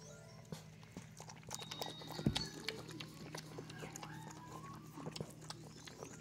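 Mother dog licking and chewing while whelping: wet mouth clicks and rustling against towels, with a dull thump about two seconds in.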